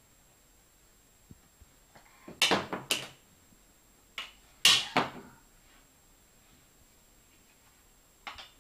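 Sharp clacks and clatters of a wooden spatula and toy pieces being knocked against a tiled floor and plastic mat: a quick cluster of about three knocks a couple of seconds in, a single knock, then a louder pair about halfway through, and one lighter knock near the end.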